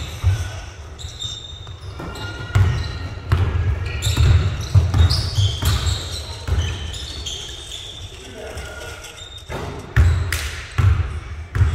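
Basketball bouncing on a gym floor amid repeated sharp knocks and short high squeaks, with indistinct voices echoing in a large hall.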